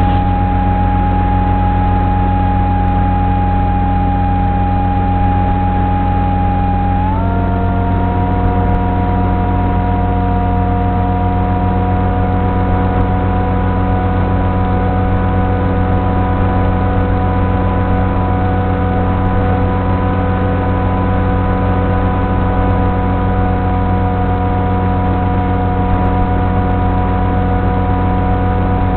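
Electric motor and propeller of an FPV flying wing whining steadily in flight. Its tone changes abruptly about seven seconds in, as with a throttle change, then holds steady again.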